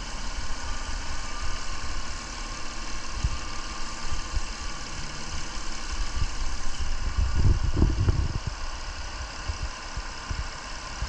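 Mercedes C230 engine idling steadily, with a few low thumps about seven to eight seconds in.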